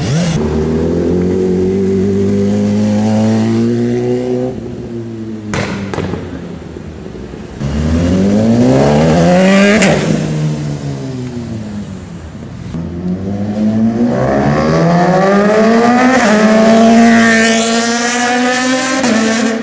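BMW S1000RR superbike inline-four engines accelerating hard through the gears, the note climbing and dropping back at each upshift. About ten seconds in, one bike passes close and its pitch falls as it goes by.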